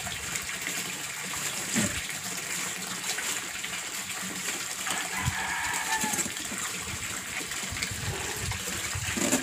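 Steady gushing of water running into a koi pond.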